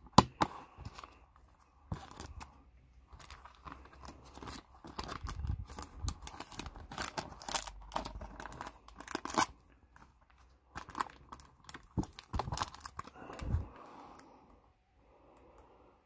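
Gloved hands handling a trading card and its clear plastic holder: irregular crinkling and rustling of plastic, with a sharp click just after the start.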